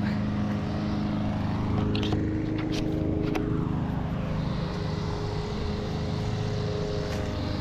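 Steady drone of a motor vehicle engine running, its pitch shifting slightly about four seconds in, with a few light clicks over it.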